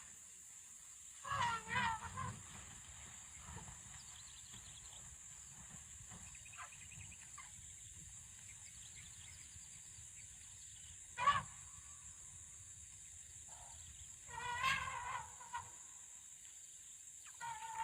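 Wild elephants trumpeting: short, harsh, pitched calls that bend in pitch, a pair about a second in, one around eleven seconds, another a few seconds later and more near the end, over a steady high-pitched hiss.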